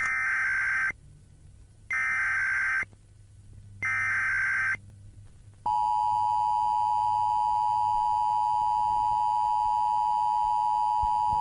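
Emergency Alert System opening: three short bursts of SAME header data tones, each about a second long and about a second apart. About five and a half seconds in, the steady two-tone EAS attention signal starts and holds.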